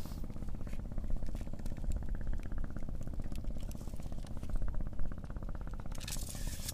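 An engine running steadily, its note even and fast-pulsing, with a brief rustling hiss about six seconds in.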